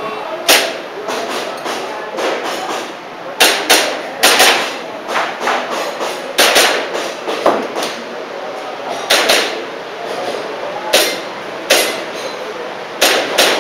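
Airsoft pistol shots: about a dozen sharp clacks at irregular intervals, some in quick pairs, others a second or more apart.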